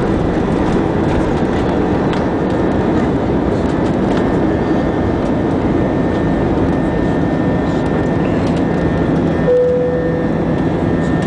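Airbus A320's turbofan engines at takeoff power, heard as steady engine and air noise inside the cabin as the jet leaves the runway and climbs. A brief tone sounds about nine and a half seconds in, and a steady low hum comes in with it.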